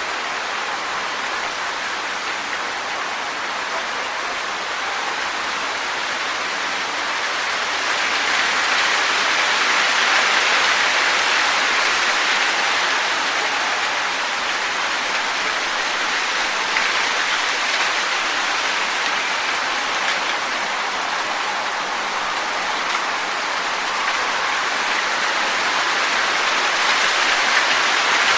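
Wind blowing through trees, leaves rustling in a steady hiss that swells in gusts a few seconds in and again near the end.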